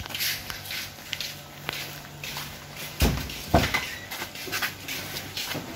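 Shuffling footsteps and rustling of several people walking close together, with two heavy thumps about three seconds in.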